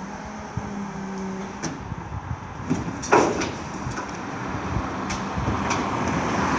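Geesink Norba rear-loader bin lorry working up the road: a steady low hum from its engine and lifting gear, broken by one sharp bang about three seconds in. Near the end a passing car's engine and tyre noise rises as it approaches.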